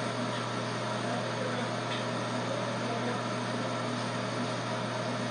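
Electric hair clippers running with a steady low hum and buzz, unchanging throughout.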